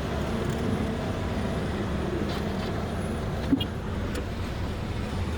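Heavy diesel engine of a gravel truck or nearby earthmoving equipment running steadily, a low rumble, with a few faint clicks.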